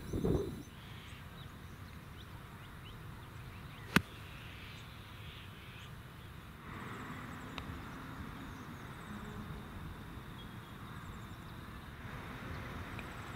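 A golf club striking a ball: one sharp, crisp click about four seconds in, most likely an iron shot off the fairway, over steady outdoor ambience with faint bird chirps. A much fainter tap follows a few seconds later, fitting a putt.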